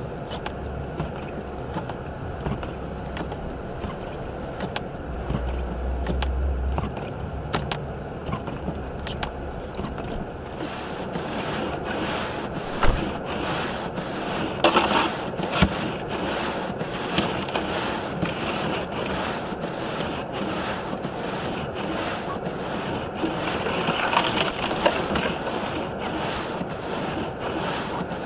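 Car driving through a blizzard, heard from inside the cabin: a steady rushing of wind and tyre noise with a low rumble in the first few seconds, broken by scattered clicks and knocks, the sharpest about 13 seconds in.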